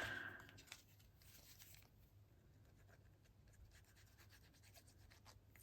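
Near silence, with faint rubbing and scratching of paper as a small die-cut piece of card is glued down.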